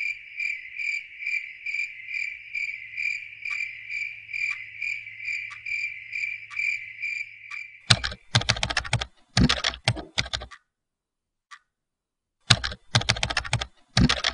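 A cricket chirps in an even rhythm of a little over two chirps a second. About eight seconds in it stops and gives way to rapid bursts of sharp clicking, like fast typing on a keyboard, with a pause and a single click between the bursts.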